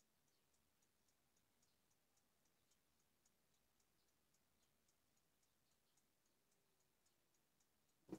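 Near silence with faint, regular high-pitched ticking, about three or four ticks a second. A single sharp click near the end.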